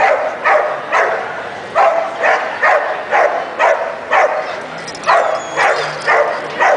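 A dog barking over and over in a steady run, about two barks a second.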